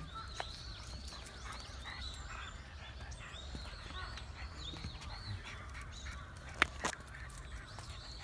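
Birds calling: many short, arching high calls overlap in quick succession, with one sharp click about six and a half seconds in.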